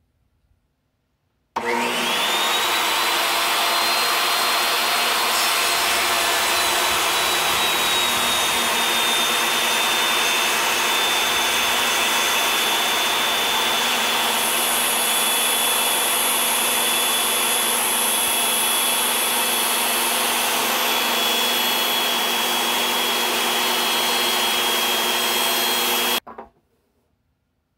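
DeWalt portable table saw's motor starting up with a rising high whine about a second and a half in, then running steadily while the blade cuts lengthwise through a maple block, its whine dropping slightly in pitch under the load. It stops abruptly near the end.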